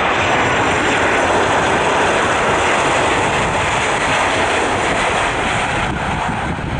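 Boeing 737-800 jet airliner on its landing run, its CFM56 turbofans giving a loud, steady rush of jet noise as it flies low over the runway and touches down, easing slightly near the end.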